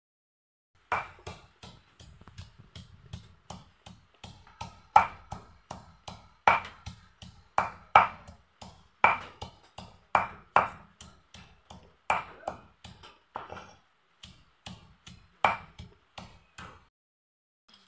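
Stone grinder (nora) pounding lai leaves on a flat grinding stone (shil): repeated knocks of stone on stone, a few a second with a harder strike about once a second. They start about a second in and stop shortly before the end.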